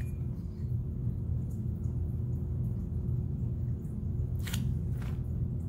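Steady low background hum with a faint held tone, broken only by two soft clicks near the end.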